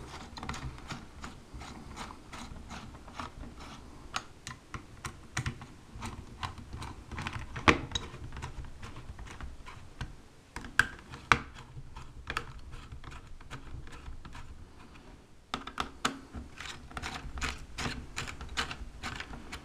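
Screwdriver tightening the laptop heatsink's screws down onto the processor and graphics chip, corner to corner: a run of light, irregular metallic clicks and ticks, several a second, thinning out briefly about ten seconds in and again around fifteen seconds in.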